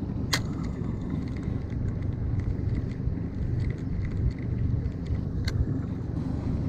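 Steady low rumble of wind and boat noise, with two sharp clicks from the spinning reel, one near the start and one near the end, and faint ticking from the reel as it is cranked in between.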